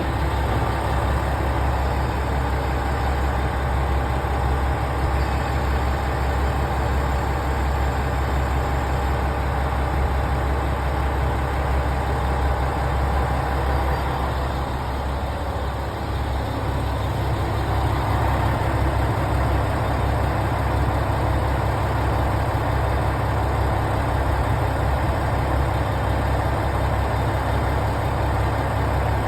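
Train running with a steady low rumble. A faint steady whine fades out about halfway through, and then the tone shifts slightly.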